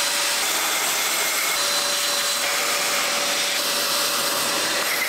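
Shop vacuum running steadily, with a faint steady whine over its rushing hiss, its hose held at the engine block deck to suck up scraped debris.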